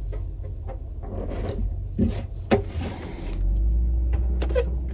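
Small objects being handled and set down on a counter: a few light clicks and knocks over a steady low rumble, which gets louder about three and a half seconds in.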